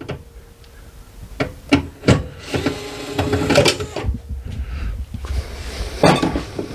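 Small electric driver's motor whining steadily in a short run, from about two and a half to four seconds in, among sharp clicks and knocks of tools and metal parts being handled.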